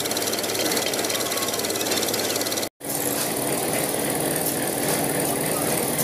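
Concrete mixer's small engine running with a steady, rapid knock. About three seconds in, the sound cuts out for an instant and a steady engine hum carries on.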